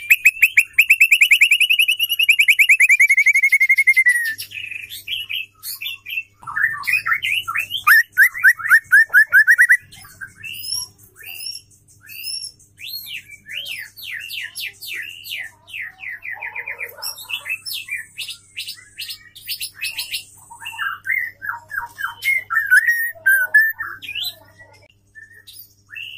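Female white-rumped shama singing: a long rapid trill for the first four seconds, another trill from about six to ten seconds in, then varied whistled swoops and quick chattering notes. It is the female's call that is used to stir male shamas into song.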